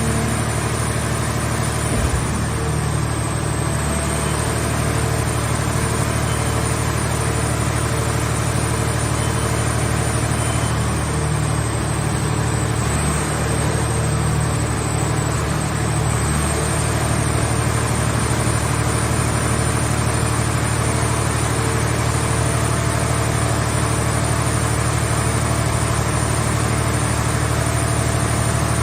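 An engine running steadily at a constant speed, with a thin high whine wavering slightly above it and one small knock about two seconds in.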